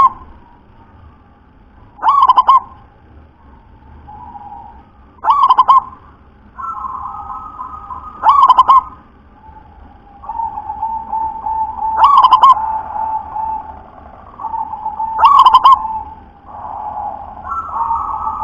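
Caged zebra dove (perkutut) singing: five loud, short coos, about one every three seconds, with softer, longer trilling coos between them.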